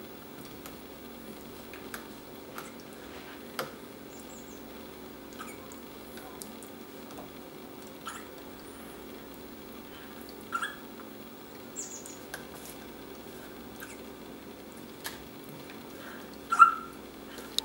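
Dog hiccupping: short, soft hiccups every second or two, unevenly spaced, with one louder hiccup near the end.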